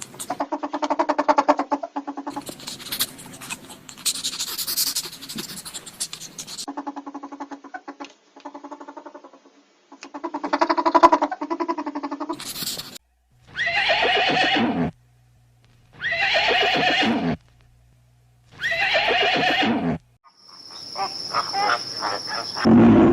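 Horse whinnying and neighing repeatedly, with a quavering pitch; in the second half three similar neighs of about a second and a half each, separated by short pauses.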